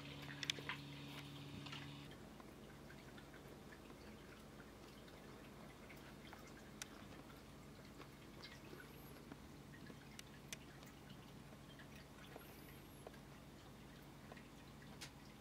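Near silence: quiet room tone with scattered faint ticks and clicks. A faint low hum stops about two seconds in.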